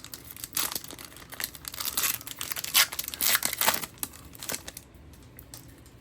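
Hockey card pack wrapper being torn open and crumpled by hand: a dense, crackly rustle, loudest in the middle, that dies away near the end.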